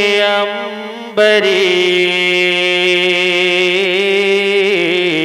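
Male naat reciter singing, drawing out long melismatic held notes in Hindi/Urdu. The first held note fades about half a second in, a louder new phrase starts just after a second in, and the pitch wavers near the end.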